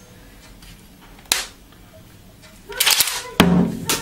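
Metal clicks and clacks of a Kral A12 semi-automatic 12-gauge shotgun's action being worked by hand: one sharp click about a second in, then handling rattle and a loud clack as the bolt is drawn back near the end.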